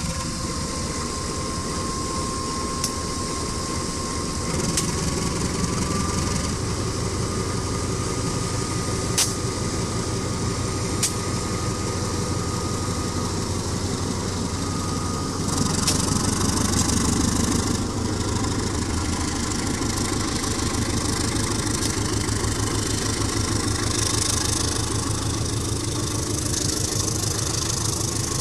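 Diesel locomotive and train running, a steady engine drone with a few sharp clicks and a brief rise in hiss partway through.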